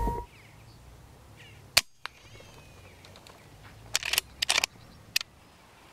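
Wood pigeons taking off, their wings clapping in a clatter of sharp cracks about four seconds in, with a last clap near the end. A single sharp crack comes nearly two seconds in.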